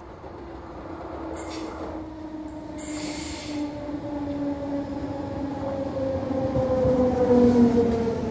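ÖBB Class 4020 electric multiple unit running into the station and past close by, growing louder as it comes, with a whine that falls slowly in pitch as it slows. Two short hisses come about one and a half and three seconds in.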